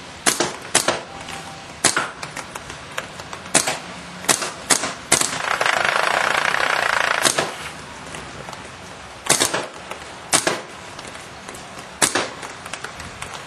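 Timmy paintball marker fitted with an Eigenram firing about a dozen single sharp shots at an uneven pace, with a steady hiss for about two seconds in the middle.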